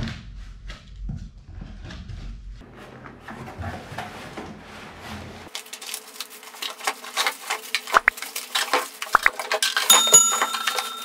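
Cardboard box and plastic-wrapped toddler-trike parts being handled: rustling plastic wrap with many light knocks and clinks as the parts are lifted out. About ten seconds in, a steady two-tone electronic beep from a subscribe-button sound effect comes in over the handling.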